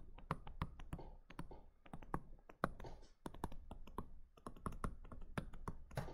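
Pen stylus tapping and clicking on a tablet surface while writing by hand: an irregular run of sharp clicks, several a second.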